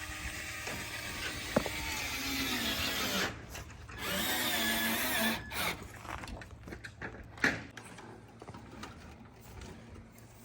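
Power drill running in two bursts: the first lasts about three seconds, and a shorter one follows about a second later.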